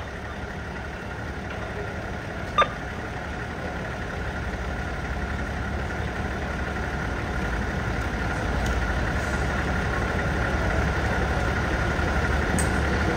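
Steady low hum of an idling vehicle engine, slowly growing louder, with one short sharp chirp about two and a half seconds in.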